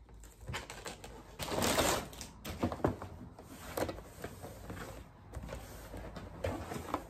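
Gift-wrapping paper rustling and tearing, loudest about one and a half to two seconds in, then a cardboard box being handled and opened, with scattered taps and scrapes.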